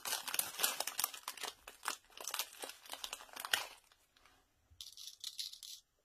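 Thin plastic bag of sequins crinkling as fingers rummage in it to pinch sequins out. The crackling stops about three and a half seconds in, followed by a few short, fainter rustles as the sequins are dropped into the shaker-card frame.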